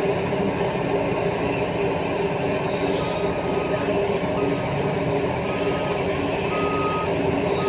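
Heavy mining machinery's diesel engines running steadily, with a reversing alarm beeping about once a second from about three seconds in.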